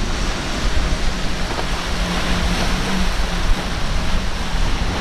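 Rough surf washing and breaking, with wind buffeting the microphone and a boat's engine droning low and steady underneath.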